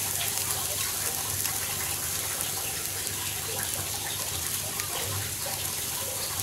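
Turkey breast sizzling on a charcoal grill over glowing hardwood charcoal: a steady hiss with faint scattered crackles.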